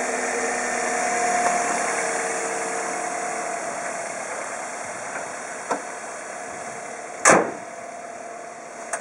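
Toyota bB's 1.5-litre 3SZ-VE inline-four DOHC engine idling steadily, growing gradually fainter. About seven seconds in comes a single sharp slam, the bonnet being shut.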